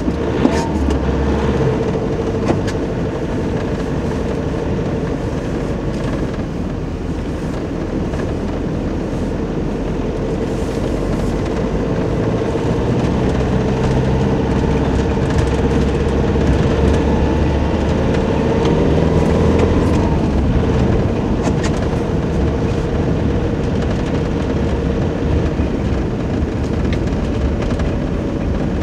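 Inside the cab of a Nissan Navara crew-cab pickup driving on snow-covered roads: steady engine rumble and tyre noise. A whine rises a little and grows louder from about twelve seconds in, then drops back about twenty seconds in.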